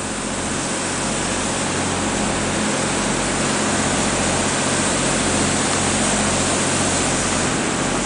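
Steady construction-site machine noise: a constant low hum under an even hiss, with no pauses or strikes.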